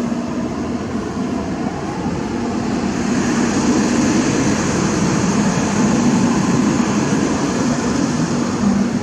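A motor vehicle driving past close by, with steady engine hum and tyre and road noise. It grows louder about three seconds in and eases off near the end.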